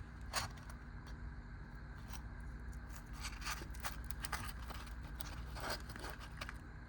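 Scattered light clicks and scrapes of small items and packaging being handled and opened by hand, coming more often in the second half, over a steady low hum.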